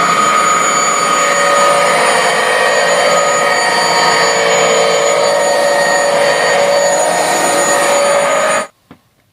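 Hoover Dual Power Pro carpet washer running on its rinse setting: a steady motor drone with a whine from the suction motor. It shuts off suddenly near the end.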